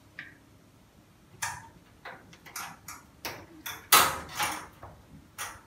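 Clicks and light taps of LED backlight strips being pressed onto a TV's sheet-metal back panel and snapped into their plastic connectors by hand: a string of irregular short clicks, the loudest about four seconds in.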